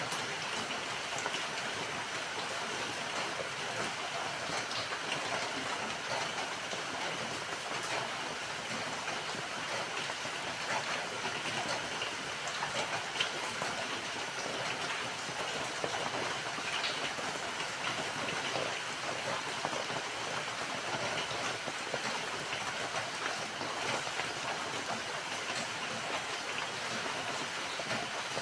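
Steady rainfall, a dense even hiss with many small drop patters.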